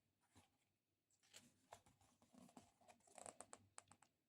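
Faint handling sounds: soft rustling with scattered light ticks, then a quick run of sharp clicks a little past three seconds in.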